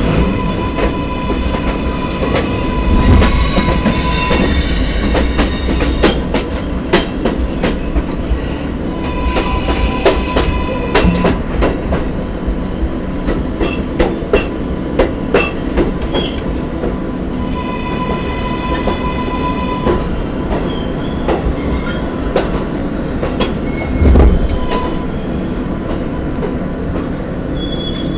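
R143 subway train running, heard from the open gap between two cars: constant rumble with rapid clicks over the rail joints, and wheels squealing in three separate spells. A heavy low thump comes late on.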